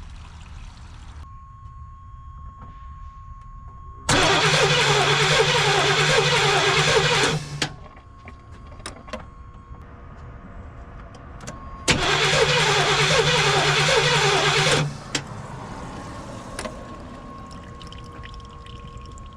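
A 1989 GMC Sierra's engine being cranked over on the starter twice, about 3 seconds each time, without starting. The fuel lines are off the throttle body, to check whether the new in-tank fuel pump is delivering fuel.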